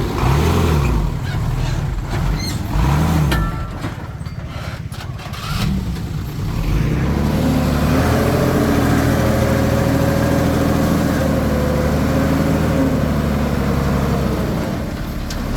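Komatsu D21P bulldozer's diesel engine working, its pitch swelling up and back down twice in the first few seconds, then running steady and louder from about seven seconds in.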